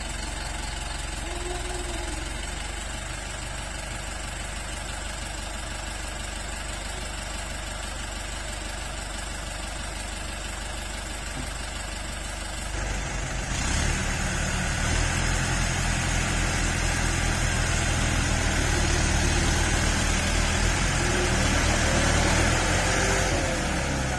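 Diesel engine of a New Holland farm tractor idling steadily, then revving up about halfway through and running hard under load for about ten seconds before easing off near the end, as it pulls a loaded sugarcane truck across the field.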